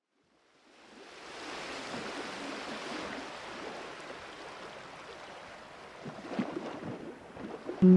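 A steady rushing noise, like running water or surf, fades in after a moment of silence and holds, with a few faint knocks near the end. Guitar music starts right at the end.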